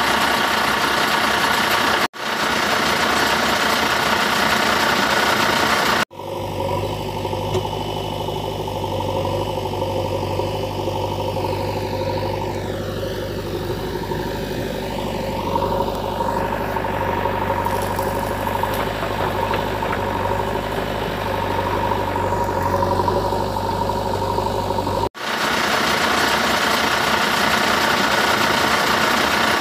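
Engine sound effect, a vehicle engine idling and running steadily, laid over unpowered plastic toy trucks. It is made of looped clips that cut off and restart abruptly about 2, 6 and 25 seconds in, with a deeper, humming engine between the middle two cuts.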